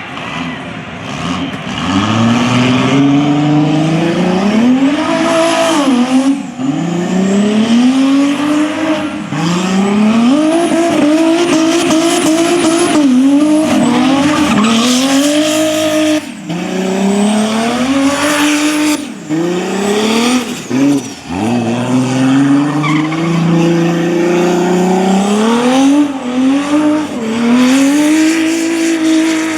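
Turbocharged Mazda 121 engine revved hard through a burnout, its pitch climbing and dropping again and again as the throttle is worked, over the hiss and squeal of spinning tyres.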